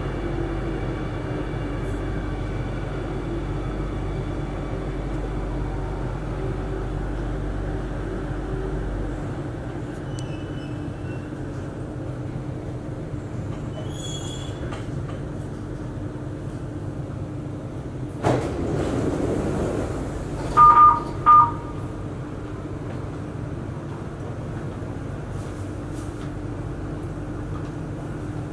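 MRT train cabin as the train draws up to a station: a steady low rumble and hum whose deepest part drops away about a third of the way in as the train comes to a stop. Later comes a short hiss, then two loud beeps from the door chime, and the doors open.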